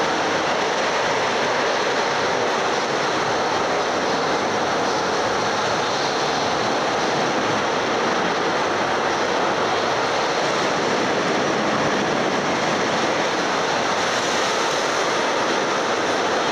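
Steady, even din of a large indoor amusement park, a noisy rush with no single event standing out.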